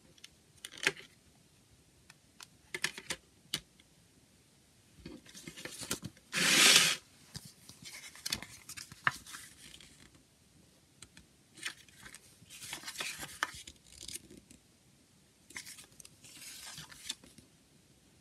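A CD jewel case and its paper booklet being handled. A few sharp plastic clicks come first, then a loud scraping rush of paper about six and a half seconds in as the booklet comes out, then bursts of paper rustling as its pages are turned.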